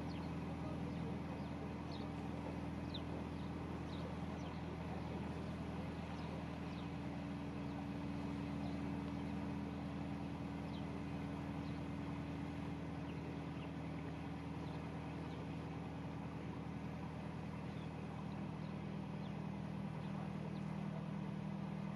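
A narrowboat's engine running steadily while under way, an even low drone.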